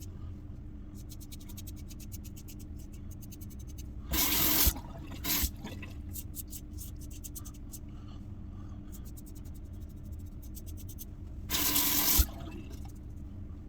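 Safety razor (RazoRock Lupo with a Gillette 7 O'Clock Sharp Edge blade) scraping through lather and stubble in runs of fast crackling strokes. Twice, a short gush of running water breaks in, the loudest sound.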